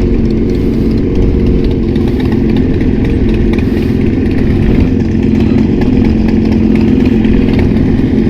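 Motorcycle with an Austin Racing (AR) aftermarket exhaust running at steady revs while riding on the highway.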